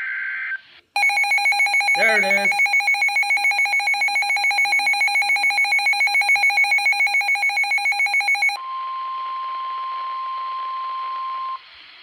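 Midland NOAA weather radio sounding a severe thunderstorm warning. It opens with the tail of a short data screech, the SAME alert header. Then comes the radio's own loud, rapidly pulsing alert alarm for about seven seconds, and then the broadcast's steady 1050 Hz warning tone over hiss for about three seconds, cutting off just before the announcer's voice begins.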